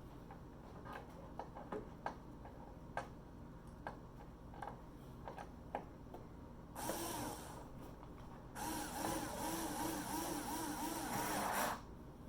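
Cordless electric screwdriver running in two bursts, about two seconds and then three seconds, with a pulsing whir, driving screws into the TV's case; light clicks and handling of parts before it.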